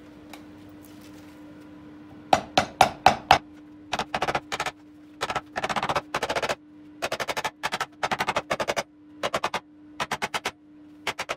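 Hammer tapping at the VR6 engine's rear main crankshaft seal in its housing, which is resting on a block of wood. Five hard separate blows come about two seconds in, then quick runs of lighter taps, on and off, to the end.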